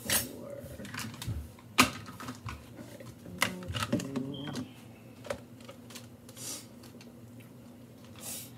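Kitchen clatter: irregular sharp clicks and knocks of utensils and dishes being handled, the loudest about two seconds in, over a steady low hum.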